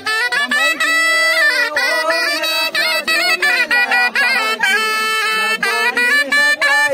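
A small handheld wind instrument played with a fast, ornamented folk melody, its reedy notes stepping quickly up and down with short breaks between them.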